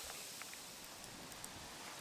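Faint steady hiss with a few light ticks and crackles, typical of a wood campfire burning low.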